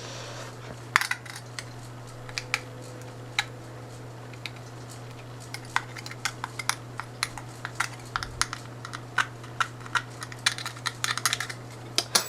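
A metal nail poking and tapping at the ports inside an opened iPhone 5S: irregular small clicks, sparse at first and coming thick and fast in the last few seconds, over a steady low hum.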